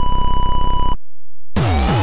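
Electronic techno track: a steady high synth tone over a fast stuttering beat, a short cut-out about a second in, then the beat drops back in with kick drums falling in pitch under a slowly rising synth line.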